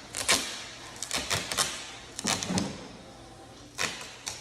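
Duct tape being pulled, torn and pressed onto a cardboard box: a string of short, sharp rips and taps in irregular clusters.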